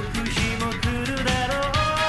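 Background music with a steady drum beat and a melody.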